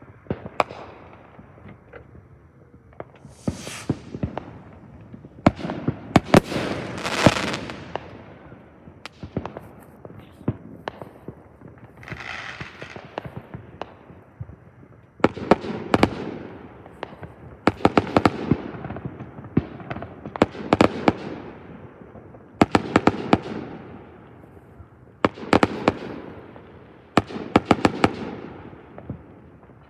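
Aerial fireworks bursting in the sky: volleys of sharp bangs and rapid pops come every two or three seconds, each fading off in a rolling echo.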